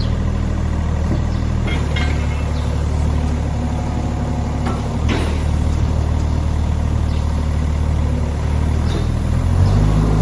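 Hitachi ZX30UR-2 mini excavator's diesel engine running steadily, its note shifting a couple of times and rising with more load near the end. Occasional light clicks and squeaks come through over the engine.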